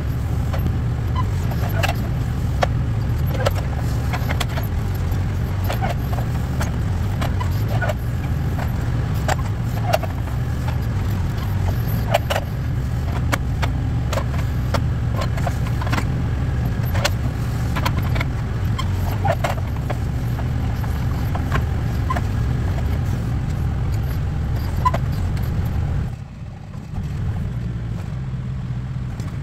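Backhoe engine running steadily under load while the bucket digs, with frequent sharp metal clanks and knocks from the bucket and arm. Near the end the engine sound drops for about a second, then picks up again.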